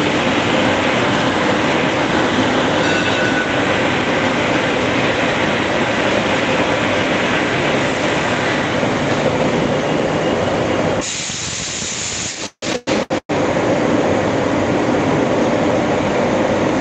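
Oxygen generator plant's machinery, its air compressor among it, running with a loud, steady mechanical noise. About two-thirds of the way through, the sound drops and cuts out briefly a few times, then carries on as before.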